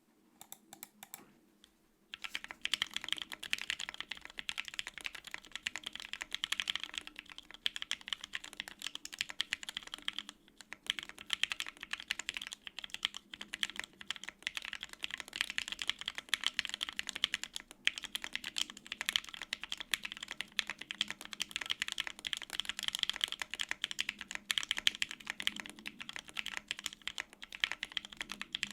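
Fast typing on a custom Bear 65% Ergo mechanical keyboard: lubed Gateron Ink Black V2 linear switches on a polycarbonate plate with no foam, under GMK double-shot ABS keycaps. A few scattered keystrokes, then steady fast typing from about two seconds in, with a brief pause about a third of the way through.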